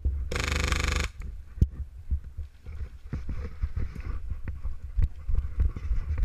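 Airsoft electric gun firing a short full-auto burst of rapid shots lasting under a second, then a run of thudding footsteps on dirt. Everything is muffled, recorded through a waterproof camera case.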